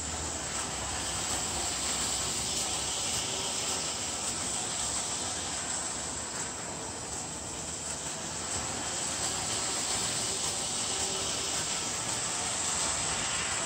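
LeMax Christmas toy train running around its oval track: a steady motor whir and wheel rumble with a high hiss, unchanging throughout.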